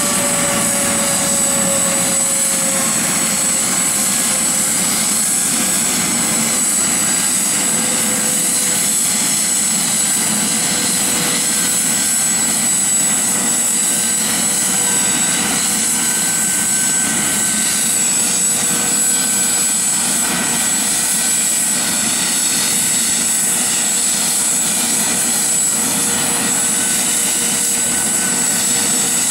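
Dauphin-type medical helicopter with a shrouded (Fenestron) tail rotor running on the ground, main rotor turning: a steady turbine whine with a high whistle over it, one tone sliding down a little in the first few seconds and then holding.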